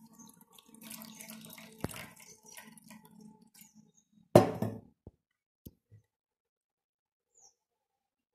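Water poured from a stainless steel pot into a steel bowl of leaves, splashing for about four seconds. The pot is then set down with a loud metallic clank that rings briefly, followed by a few light taps.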